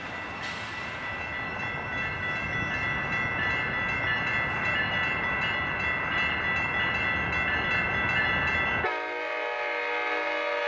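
Siemens SC-44 Charger diesel locomotive approaching, its horn sounding a steady chord over the low rumble of the train, growing louder as it comes closer. Near the end the rumble drops away abruptly and the horn chord stands out clearly.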